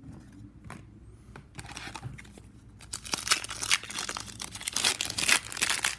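A trading-card pack wrapper being crinkled and torn open, a dense crackling that starts about halfway through after a few light taps and handling sounds.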